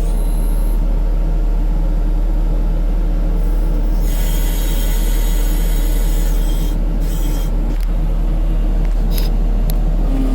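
2015 New Holland skid steer's diesel engine running steadily, with a high squealing hiss from the machine from about four to seven seconds in and a few short high clicks near the end.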